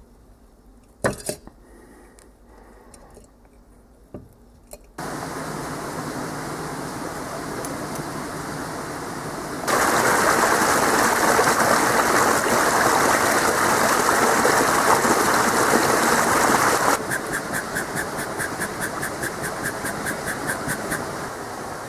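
Air rushing from a bellows nozzle into a glowing charcoal fire: a steady noise that jumps louder about ten seconds in and breaks into rapid pulsing near the end. Before it come a few light knocks over a quiet background.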